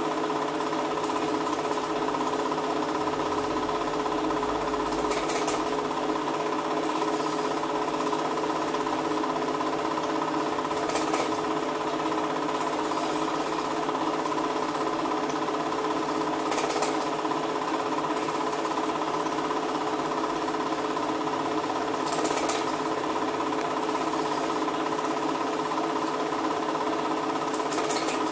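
8mm cine projector running: a steady, fast mechanical clatter from the film-advance mechanism and motor, with a brief sharp click about every five to six seconds.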